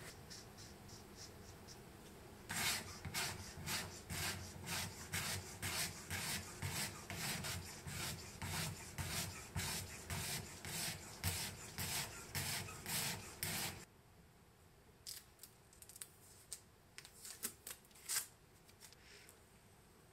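Fine-grit sandpaper on a curved homemade sharpening block scraping back and forth along a tracker knife's steel edge, guided by a sharpening jig to grind a convex edge. The strokes come about two a second and stop abruptly about two-thirds of the way through, followed by a few scattered light clicks.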